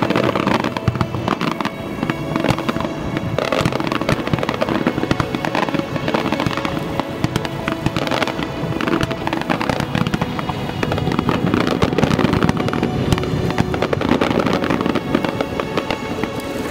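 Fireworks display: a dense, continuous run of bangs and crackling from aerial shells and fountains, with music playing alongside.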